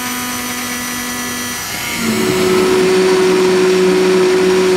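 Immersion hand blender running in a pot of thick sauce, mixing in xanthan gum to keep the oil and vinegar from separating. Its motor hum is steady, then grows louder and changes pitch about two seconds in.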